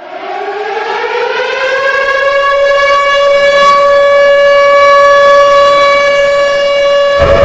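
Civil defense siren winding up: its pitch rises over the first two seconds or so, then holds one steady wail as it grows louder. A deep rumble comes in just before the end.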